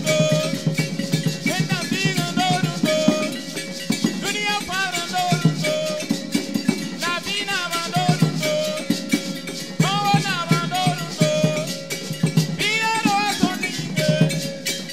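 Choir singing a song, with a man's voice leading through a microphone, accompanied by a beaded gourd rattle and other percussion keeping a steady beat.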